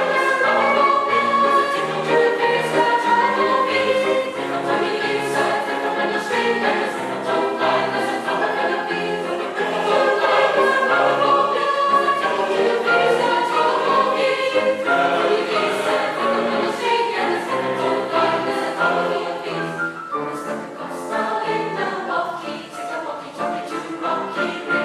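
Choir singing with accompaniment, a full mixed choir performing an upbeat choral piece.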